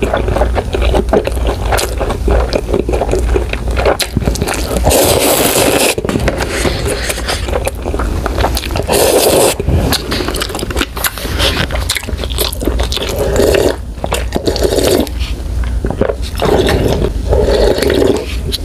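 Kimchi stew ramen noodles being slurped and chewed close to the microphone, with several slurps a few seconds apart and wet mouth noises in between.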